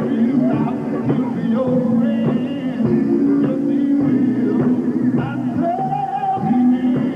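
Live gospel quartet singing with band backing: voices holding and bending long notes in harmony over guitar and drums.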